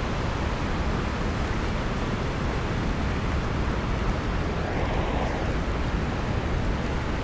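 Steady rush of turbulent water in the tailwater below a dam, the outflow boiling up at the surface.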